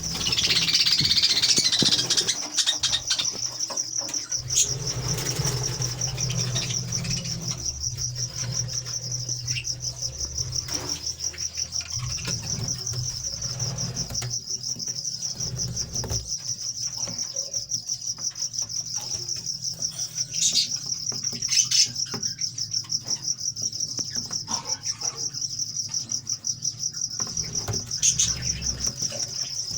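Caged lovebirds: a steady, rapidly pulsing high-pitched chirring all through, with a few sharper chirps about two-thirds of the way in and again near the end, over low rustling of the birds moving.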